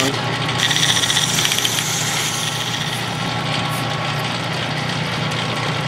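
Metal lathe running steadily while a flat file rasps against the spinning metal workpiece, rounding off its corner. The filing stops about three seconds in, leaving the lathe's steady hum.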